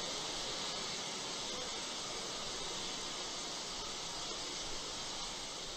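Steady hiss from a fuelled Falcon 9 rocket on the launch pad venting oxygen vapor, with the countdown held after an aborted startup.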